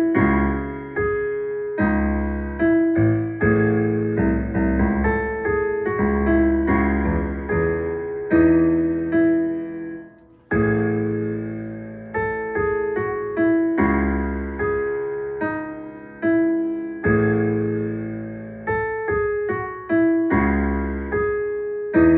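Electric piano playing a chord progression, each chord struck and left to fade, with a deep bass note under it; the music drops out for a moment about ten seconds in.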